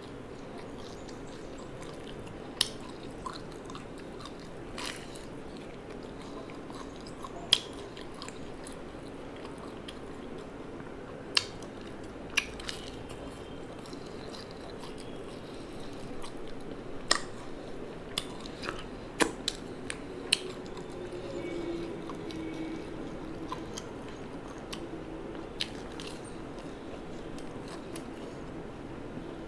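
A person chewing and biting food close to the microphone, with scattered sharp crunches or clicks over a steady low background hum.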